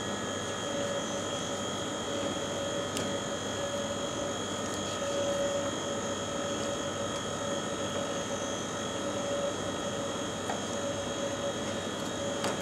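Steady mechanical drone of a commercial kitchen's ventilation, a hum with several steady whining tones. A couple of faint ticks from a knife on a plastic chopping board sound through it.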